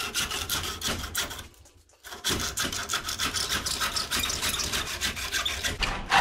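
Husky hand saw cutting through an old, partly rotten wooden axe handle clamped in a vise: a steady run of quick rasping back-and-forth strokes, with a short pause about two seconds in. A louder thump comes right at the end.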